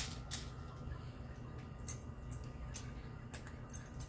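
Scattered faint clicks and crunches of a cat eating dry kibble at a plastic food-puzzle feeder, over a low steady hum.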